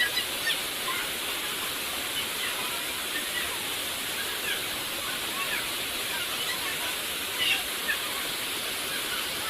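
A river rushing steadily over rocks and waterfalls, with brief high chirps scattered through and one slightly louder burst of chirping near the end.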